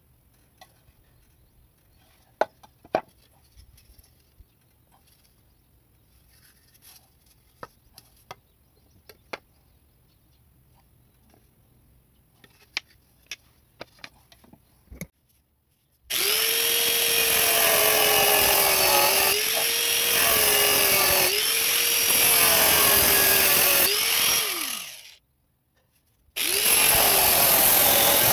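A few sharp knocks and clicks as siding boards are handled, then about 16 seconds in an angle grinder fitted with a cheap metal-cutting disc starts cutting siding board. Its whine dips in pitch every couple of seconds as the disc bites. It winds down and stops, then starts cutting again about a second later.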